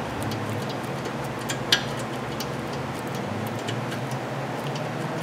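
Ratchet clicking faintly and unevenly as the 7 mm caliper bolt is backed out, with one louder click a little under two seconds in, over a steady low hum.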